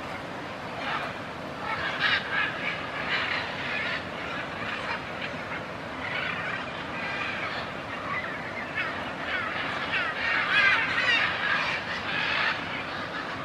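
Military macaws giving harsh, raucous squawks and chatter in irregular bunches, with the densest and loudest calling about ten to eleven seconds in, over a steady hiss.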